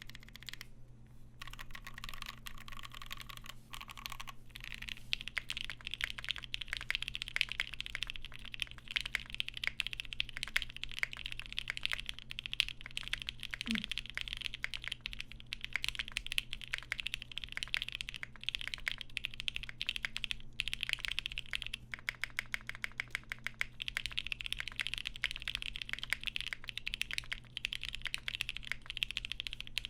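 Fast, continuous typing on a custom 75% mechanical keyboard: Alpaca linear switches lubed with 205g0 and filmed, with GMK keycaps and a carbon fiber half plate, giving a dense run of keystroke clacks. There is a short pause about a second in.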